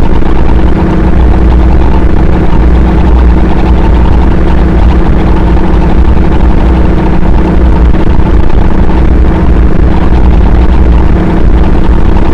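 Harsh noise music: a loud, distorted wall of noise with a heavy low rumble and a steady droning tone underneath, holding an even level throughout.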